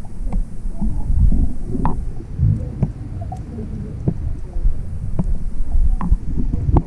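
Muffled underwater sound picked up by a submerged camera: a low, uneven rumble of moving water with scattered faint clicks and pops.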